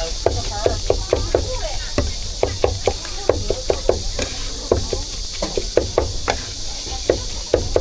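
Cleaver chopping on a wooden board, about five quick strokes a second in runs with short pauses between them, as meat is chopped for roujiamo filling.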